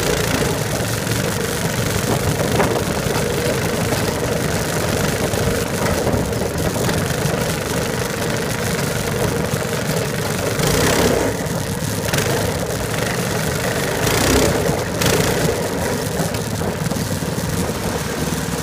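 Engine of a small off-road vehicle running steadily as it rides across a field, with louder rushes of noise about eleven and fourteen seconds in.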